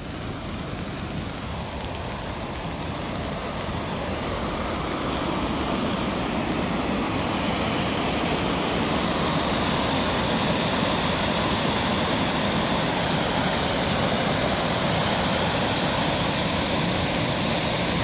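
Waterfall: a steady rush of falling water that grows louder over the first several seconds as it is approached, then holds steady.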